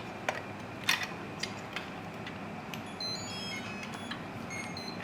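A few sharp clicks as the battery plug is connected. From about the middle, a series of short, high electronic beeps at changing pitches follows, typical of the RC bulldozer's electronics powering up.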